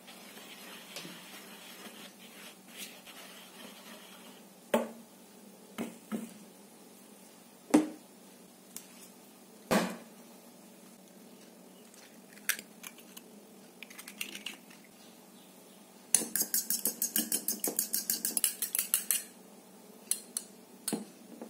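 A wire whisk stirring dry flour in a plastic bowl, then a few separate sharp knocks, then a fork beating an egg in a small ceramic bowl: a rapid run of clinks against the bowl for about three seconds near the end.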